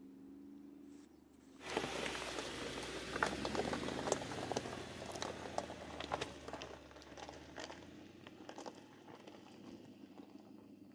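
Tyres of a 2019 Mercedes-Benz G-Class crunching and crackling over loose rocks and gravel, with many sharp stone clicks and pops; it starts suddenly a little under two seconds in and slowly fades over the last few seconds. Before that, a faint engine hum.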